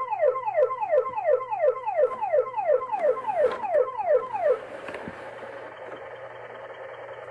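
Toy fire engine's electronic siren: a fast falling wail repeated about three times a second, which after about four and a half seconds changes to a steady tone with hiss.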